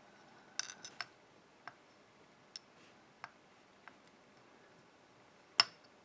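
Small metal clicks and clinks as a pin tumbler lock is taken apart: parts tapping and dropping into a pinning tray. The clicks are irregular, a cluster of four in the first second and then single ones, with the loudest near the end.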